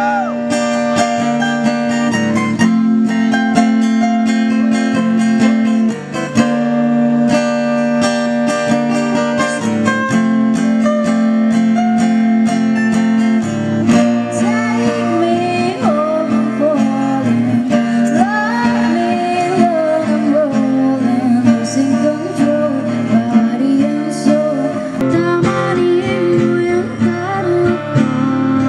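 A live acoustic guitar, strummed steadily, accompanies a woman singing into a microphone. Her voice stands out more clearly from about halfway through.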